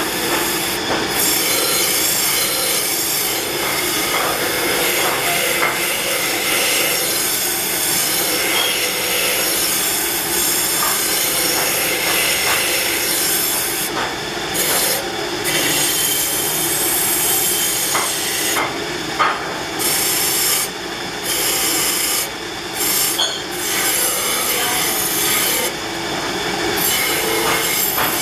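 Spinning wire wheel brush on a bench-mounted machine, scraping against a sheet-metal timbale bell pressed to it by hand: a continuous metallic scraping hiss that eases off briefly several times in the second half as the bell is lifted or turned on the wheel.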